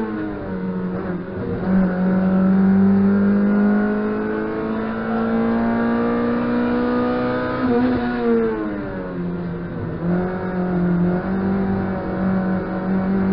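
Rally car engine heard from inside the cabin, pulling under load with its pitch climbing slowly. About eight seconds in the note drops, then it holds steady again.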